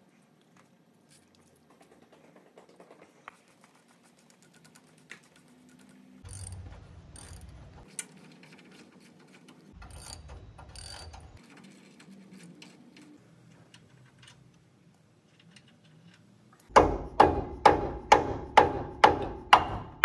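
A ratchet wrench cranked in quick, even strokes of about three clicks a second, loosening the 3/4-inch bolts on an HMMWV geared hub's back plate. This starts late and is the loudest sound. Before it there is only faint tool handling, with a couple of shorter bursts.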